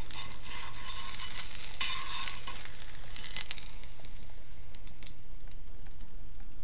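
Hot oil sizzling and crackling in a frying pan around eggplant fritters (baigani), with a few sharp clicks as a fritter is lifted out to drain. The sizzle eases off about three and a half seconds in.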